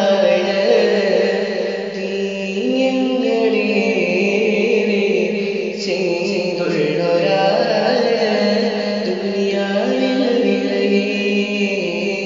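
A solo voice singing a slow, ornamented devotional melody in a chant-like style, over a held low backing note that shifts pitch a few times.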